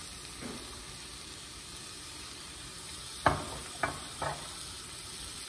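Peeled beans sautéing in olive oil in a frying pan on a gas stove, a steady low sizzle. About three seconds in come three sharp knocks, the first the loudest.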